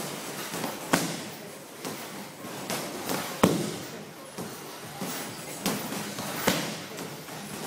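Gloved punches and kicks landing on Muay Thai pads: sharp smacks at an uneven pace. The hardest come about a second in, midway and near the end, with lighter hits between.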